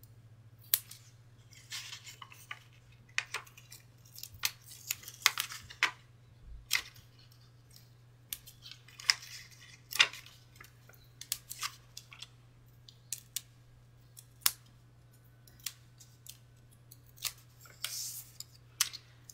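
Paper crafting handling: scattered light clicks, taps and brief paper rustles as small card pieces and adhesive foam dots are handled on the work surface, over a faint steady hum.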